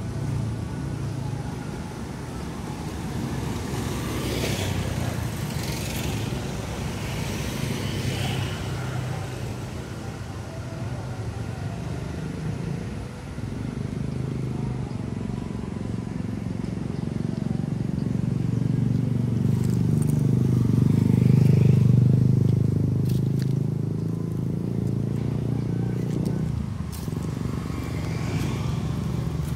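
Motorcycle and road traffic running steadily, with one vehicle growing louder as it passes about two-thirds of the way in and then fading.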